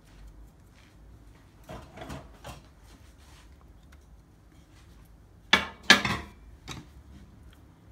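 Spoon and small ceramic bowl handled while paste is scooped onto raw chicken: a few soft taps, then two sharp knocks about half a second apart, the loudest sounds, and a lighter knock after.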